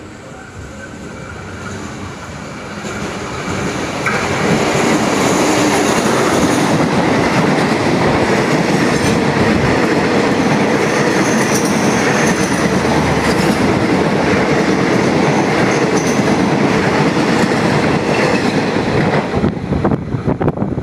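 Passenger express train hauled by an Alsthom diesel-electric locomotive (ALS 4101) running through the station at speed without stopping. The noise builds as the train approaches and jumps sharply about four seconds in as the locomotive reaches the platform. The coaches then roll past, loud and steady, for about fifteen seconds before the sound drops away near the end.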